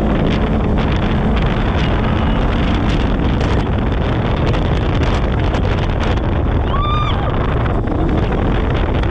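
Polaris RZR 1000 side-by-side driving over a dirt off-road track: engine running under heavy wind noise on the microphone. A short high squeak comes about seven seconds in.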